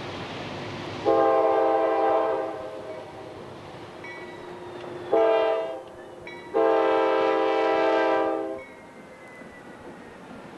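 Diesel freight locomotive's multi-chime air horn sounding three blasts, long, short, long, as the train approaches a road crossing. Under the blasts, the steady running of the approaching locomotives.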